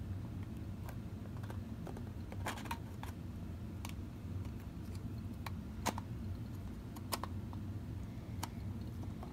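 Scattered light clicks and taps of a VW speedometer's cover and trim ring being handled and fitted by hand, over a steady low hum.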